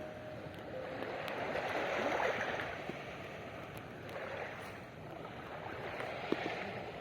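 Rushing water, a steady hiss that swells and eases every couple of seconds.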